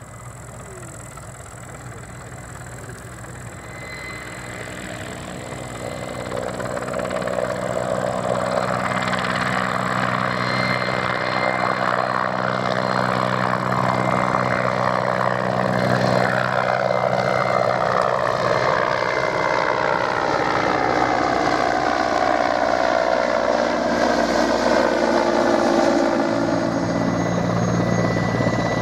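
Mil Mi-8 twin-turboshaft helicopter flying past low: the rotor and turbine sound grows louder over the first several seconds, then its whine falls steadily in pitch as it goes by.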